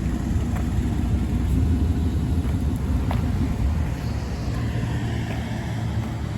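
Truck engine running steadily with a deep, continuous low rumble.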